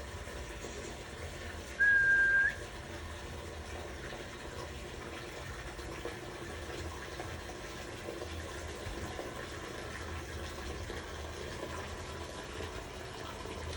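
A single clear whistled note, held steady for under a second and ending with a short upward flick, over a steady background rush.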